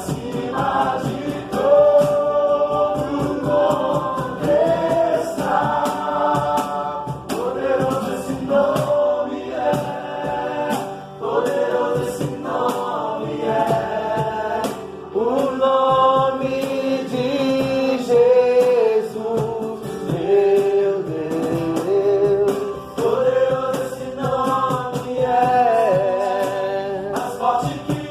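Gospel worship music: singing over sustained keyboard chords.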